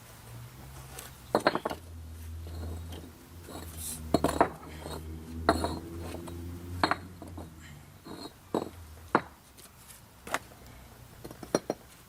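Hand tools and metal engine parts clinking and knocking during work on an engine, about a dozen separate sharp clinks spread out, with a low hum underneath for a few seconds in the middle.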